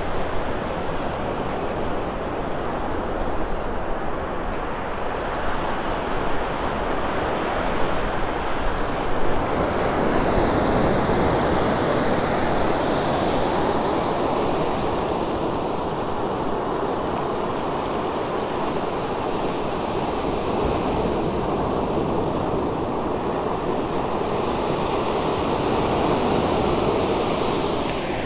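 Gulf of Mexico surf washing onto a sandy beach: a steady rush of breaking waves that swells about ten seconds in, with some wind on the microphone.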